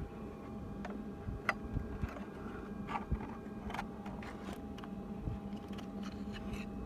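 Scattered light clicks and clinks of hand tools and metal fittings being worked in a car's engine bay, more frequent in the second half, over a steady low hum.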